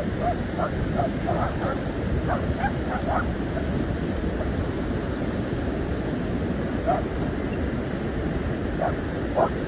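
Dogs barking and yipping while playing: several short barks in the first three seconds, one near seven seconds and a couple more near the end, over a steady rush of ocean surf.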